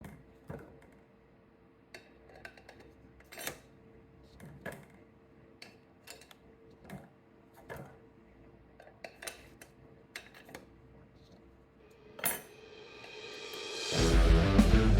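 Scattered light metallic clinks and clatters of metal parts and tools being handled, over a faint steady hum. Near the end a rising swell leads into loud electric-guitar rock music.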